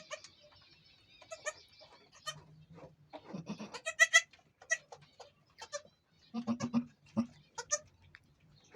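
Goats bleating in short, repeated calls, the loudest about four seconds in, with lower calls around six and a half to seven seconds.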